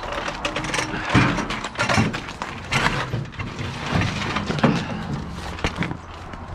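Plastic milk crate and cardboard case being handled and set onto a metal hand truck: irregular knocks and clatter, a few louder ones, over a steady low engine hum.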